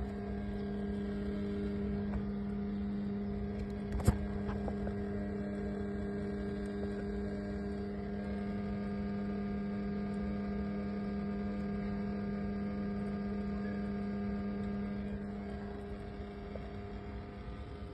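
Steady droning hum from the engine bay of an Alfa Romeo Stelvio 2.0, one low tone with several higher ones above it. The owner takes it for more than an EGR noise, since it sends a slight vibration through the car and into the steering wheel. A single sharp click sounds about four seconds in.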